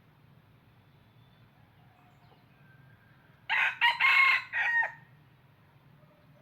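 A red junglefowl cock crows once, about halfway through: a short, clipped crow of about a second and a half in four quick parts. It is a decoy bird of the kind used to lure wild males.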